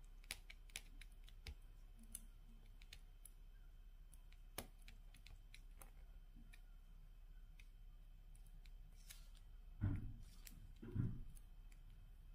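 Faint, scattered light clicks of metal tweezers picking up diamond-painting drills and pressing them onto the sticky canvas. Two soft low thumps come close together near the end.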